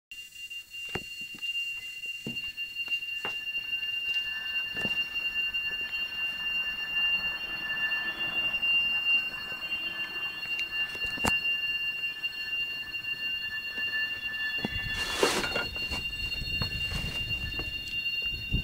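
Loud, high-pitched screeching: one steady piercing tone held throughout, with a second, lower tone wavering in and out beneath it. About fifteen seconds in, a brief louder rush is followed by a low rumble.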